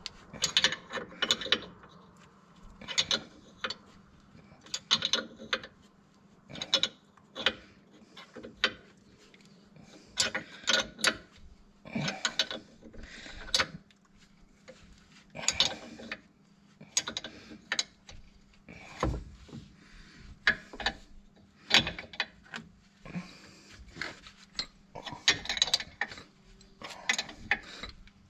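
Ratchet wrench clicking in short, irregular bursts of strokes, likely tightening the bolt of a puller to press a stuck tie rod end out of the steering knuckle.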